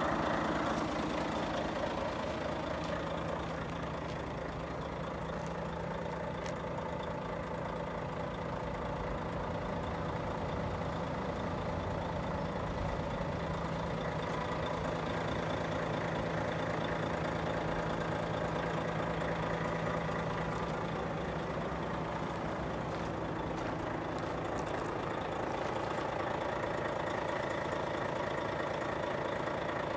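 Volvo FH500's 13-litre straight-six Euro 6 diesel idling steadily.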